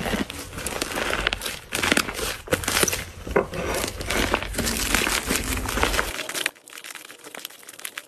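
Hands kneading and squeezing fluffy slime, a dense run of crackles and pops as air is pressed out of it. About six and a half seconds in it turns much quieter, with only sparse soft clicks.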